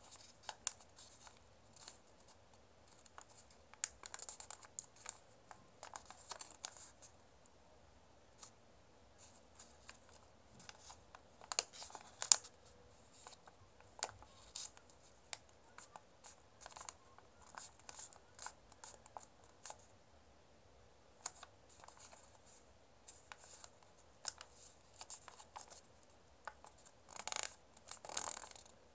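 A sheet of origami paper rustling and scraping in short, scattered bursts as it is handled, folded and its creases pressed down, with a longer rustle near the end.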